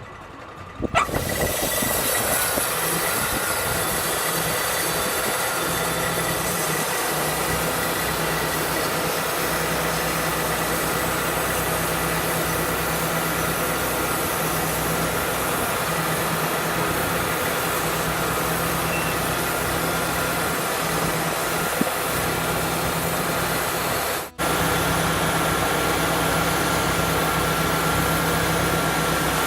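Portable sawmill running steadily under load, its engine noise mixed with a loud hiss. It starts abruptly about a second in and drops out for a moment about 24 seconds in.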